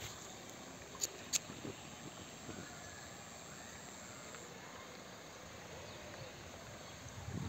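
Faint steady wash of a shallow rocky stream running over stones, with two sharp clicks about a second in and a thin high steady tone that stops about halfway.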